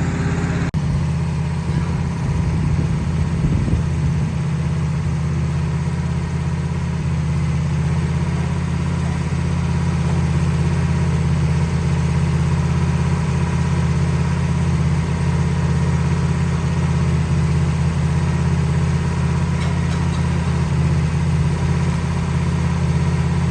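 An engine idling steadily, with a brief click about a second in.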